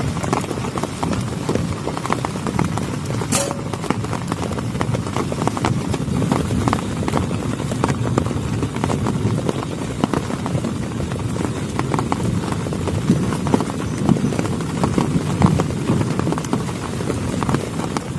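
Heavy rain falling on a plastic tarp, a dense, steady patter of drops, with one sharp click about three seconds in.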